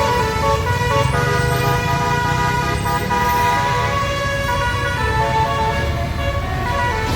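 Tour bus's basuri (telolet) multi-tone horn playing a tune of shifting notes over the rumble of the bus's engine running.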